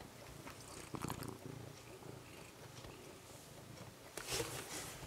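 Young cat purring steadily while being stroked, with a burst of rustling from hand and fur against the microphone near the end.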